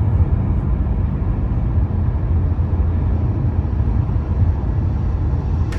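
Steady low rumble of a vehicle on the move, heard from inside it.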